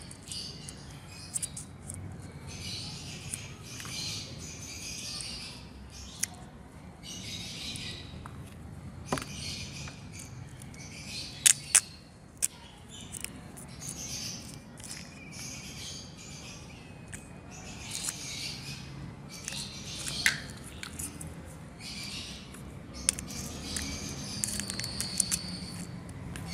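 Plastic jelly cups being handled, their sealing film cut and peeled off: repeated short spells of plastic crinkling and crackling, with sharp plastic clicks in between.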